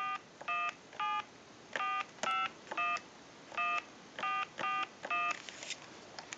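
BellSouth Trimline telephone dialing a number in touch-tone mode: about ten short DTMF key tones in quick, unevenly spaced succession.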